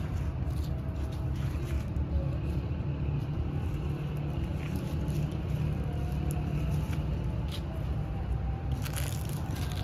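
Steady low rumble of distant road traffic, with a few faint light clicks.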